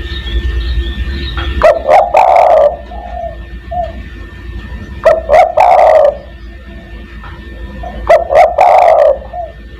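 Spotted dove (tekukur) cooing: three loud phrases about three seconds apart, each a couple of short notes running into a longer coo, over a low steady hum.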